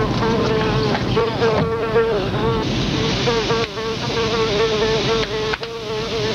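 A continuous buzzing drone, wavering slightly in pitch, with a steady hiss that grows stronger about three seconds in.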